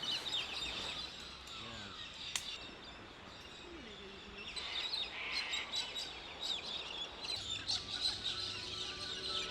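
Many small birds chirping and trilling over one another, thickest in the second half, with a few lower calls now and then.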